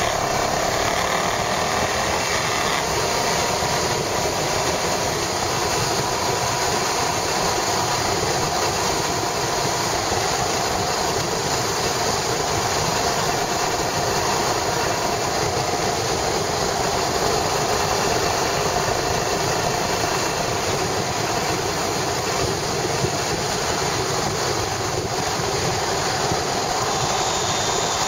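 Yamaha SRX400's single-cylinder four-stroke engine running steadily, heard through a camera mounted on the motorcycle during a test ride after repair.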